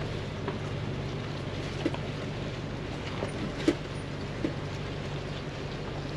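Land Rover Defender's engine running with a steady low drone as it crawls along a muddy dirt trail, heard from inside the cabin. A few short knocks and clicks, from the vehicle riding over ruts, break through it, the sharpest about three and a half seconds in.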